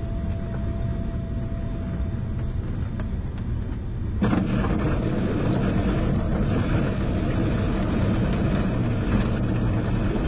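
Ultralight aircraft rolling out on the runway at idle power, heard from inside the cockpit: a steady low rumble of the idling engine, propeller and wheels that steps up in loudness about four seconds in. A faint thin steady tone stops early on, and a few light ticks come near the end.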